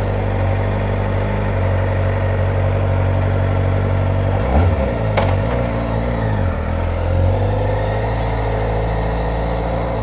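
Kawasaki Ninja ZX-4RR's inline-four engine running while under way, its pitch dipping and climbing again about halfway through as the throttle changes. A sharp click sounds about five seconds in.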